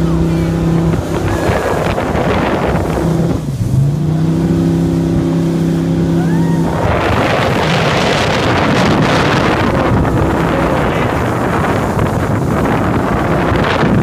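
Jet boat engine running at a steady pitch, dipping briefly and coming back up about three and a half seconds in. About halfway through, a loud rush of water spray and wind takes over until near the end.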